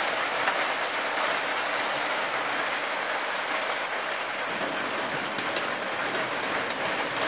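Steady rain falling, an even hiss with a few sharper taps about five seconds in.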